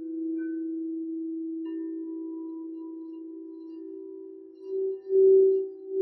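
Crystal singing bowls ringing in long, overlapping steady tones; a second bowl's note joins about two seconds in. Near the end one note swells and fades in loud repeated pulses as a bowl is played with the mallet.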